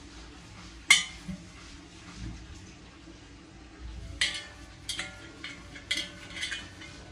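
Brass kitchen utensils clinking and knocking against each other: one sharp ringing clink about a second in, then a run of several more clinks from about four to six and a half seconds.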